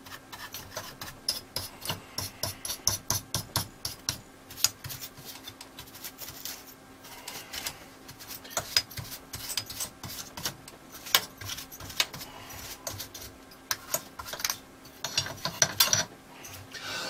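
Quick repeated rubbing and brushing strokes as dust is scrubbed off the old valve TV chassis around the picture tube's neck and deflection yoke, coming in runs with short pauses.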